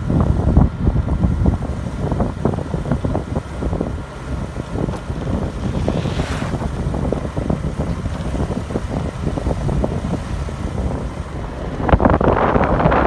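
Wind buffeting the microphone while riding a motorbike, with the engine running underneath. The buffeting grows louder near the end.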